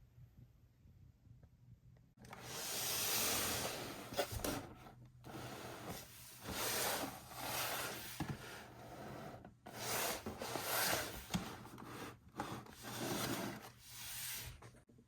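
Hands rubbing and scraping on toy packaging, in a run of long strokes with short pauses, starting about two seconds in.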